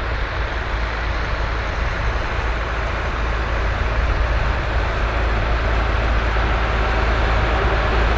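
Massey Ferguson tractor engine running steadily under load while pulling a plough, growing slightly louder towards the end.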